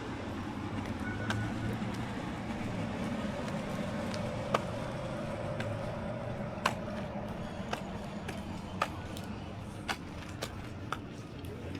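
Steady low background rumble with a faint held tone through the middle and sharp clicks about once a second in the second half.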